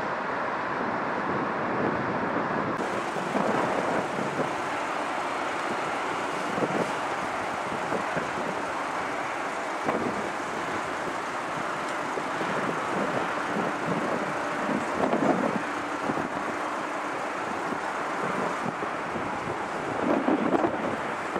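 Steady outdoor roar of airport jet noise and road traffic, with gusts of wind buffeting the microphone. The strongest gust comes near the end.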